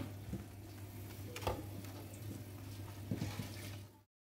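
Cling-film-covered foam trays being handled: a few light clicks and taps, the sharpest about a second and a half in, over a steady low hum that cuts off suddenly near the end.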